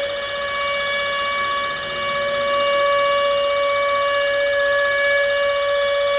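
Civil defense siren sounding one steady, held note, growing a little louder about two seconds in.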